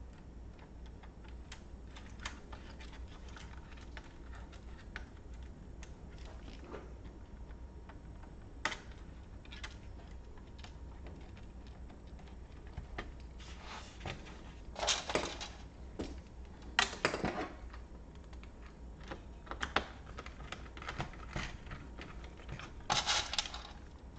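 Small plastic clicks, taps and clatter of laptop case parts and components being handled by hand, scattered throughout, with louder bursts of clatter about halfway through and again near the end, over a faint steady low hum.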